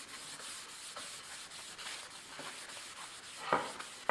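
A cloth dampened with alcohol being rubbed back and forth over a planed cherry board, a steady run of swishing strokes of rag on wood. There is a louder knock about three and a half seconds in.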